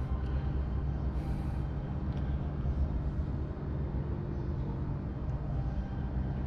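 Steady low hum with a rumble underneath, holding even with no distinct events: the background drone of a large indoor hall.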